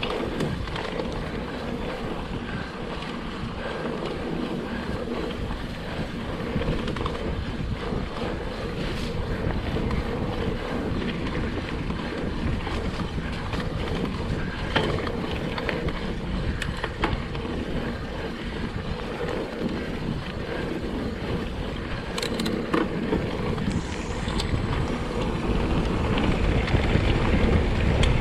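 Mountain bike descending a rough trail: wind buffeting a GoPro microphone over tyre rumble and the rattle of the bike, with scattered sharp knocks. The rumble grows louder near the end as the bike picks up speed.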